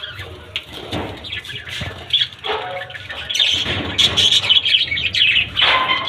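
Pet budgerigars chattering and chirping, with wings flapping; the chatter grows busier and louder about three seconds in.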